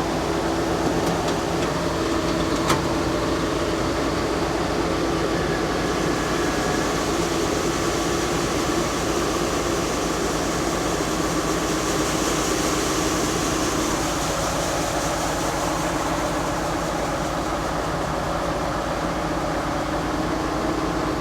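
Farm tractor engine running steadily under load, with a steady hum and one sharp click about three seconds in.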